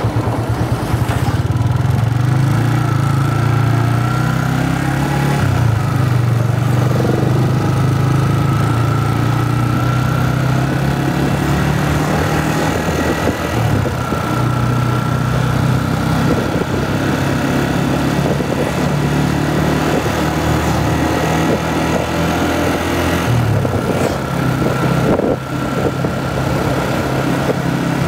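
Motorcycle engine heard from the rider's seat while riding, a steady engine note that dips and changes pitch a few times as the speed changes.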